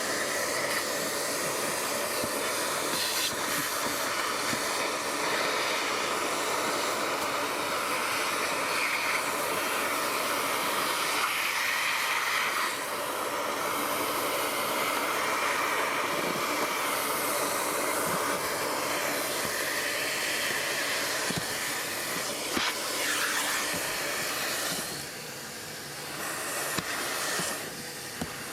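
Steady hiss of rushing air, which eases for a few seconds near the end.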